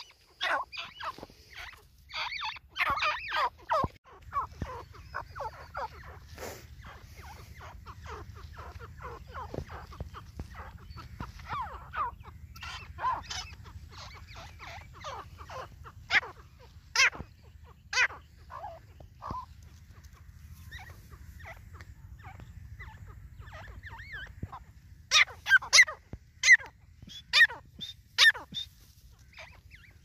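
A white teetar, a white-plumaged grey francolin, calling in runs of short, sharp, loud notes. A dense run comes at the start, calls are scattered through the middle, and the loudest run comes near the end. A steady low rumble lies beneath from about four seconds in.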